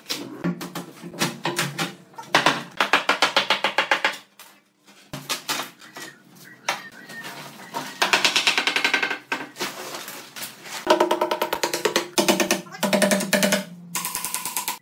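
Bursts of rapid rattling, squeaking scrapes and tearing as wooden boards and plastic sheeting are dragged and pulled at a concrete countertop, with hammer taps near the end.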